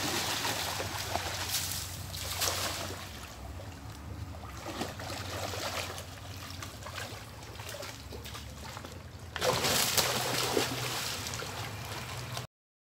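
Pond water sloshing and splashing around a man wading through it, with many short splashes. About three quarters of the way through the splashing suddenly gets louder, then it cuts off just before the end.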